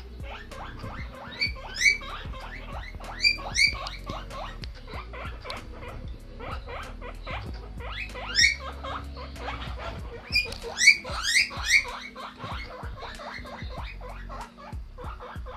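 Guinea pig wheeking: the loud, rising, whistle-like calls guinea pigs make to beg for food when hungry. They come in several runs of calls, the loudest about eleven seconds in, with many short soft squeaks between.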